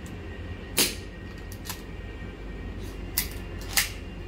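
Custom KJW Shadow 2 airsoft gas blowback pistol, with a 7075 aluminium slide and frame, fired in single shots: three sharp cracks, one about a second in and two close together near the end, with a fainter click between them.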